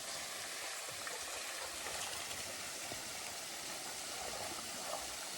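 Steady rush of flowing water from the falls or creek, an even hiss with no distinct events.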